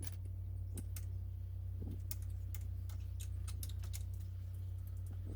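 Scattered light clicks and taps, irregular, from car parts and tools being handled, over a steady low hum.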